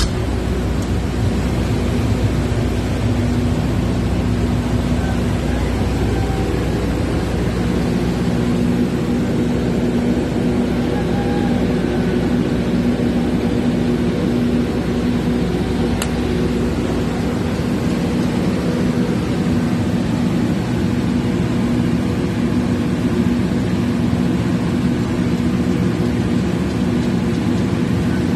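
Generator set's engine running steadily at about 1800 rpm, an even constant hum from a set turning out 60 Hz.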